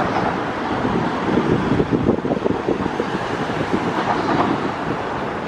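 Wind buffeting the microphone over a steady distant rumble from a Lufthansa Airbus A321-231's IAE V2500 jet engines as the airliner rolls along the runway.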